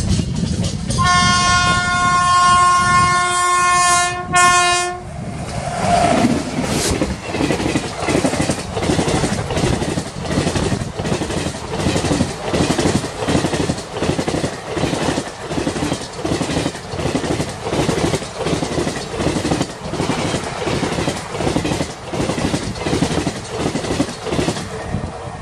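WAP-7 electric locomotive sounding its horn, one held blast of about four seconds as it approaches at speed. Then the express's coaches rush past with a steady rapid clickety-clack of wheels over the rail joints.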